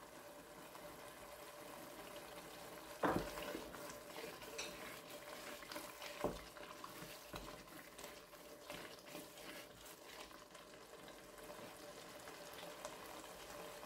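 Wooden spoon stirring a thick blended pepper and onion base frying in palm oil in a stainless steel pot: a faint, steady sizzle with soft scraping. The spoon knocks on the pot now and then, most clearly about 3 seconds in and again about 6 seconds in.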